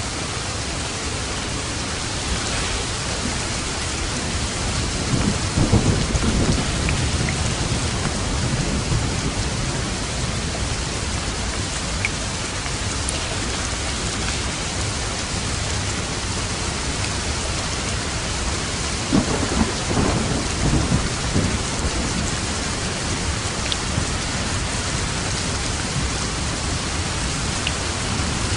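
Steady heavy rain falling, with two rolls of thunder rumbling through it, one about five seconds in and one near twenty seconds in.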